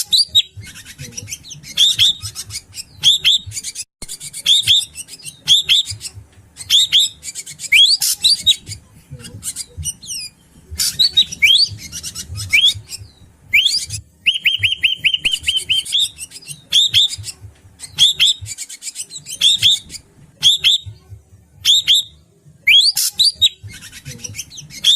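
Drongo (srigunting batu) calling over and over: short rising whistled notes with harsh chattering, and a quick rattling run of rapid notes about halfway through. A low rumble runs underneath.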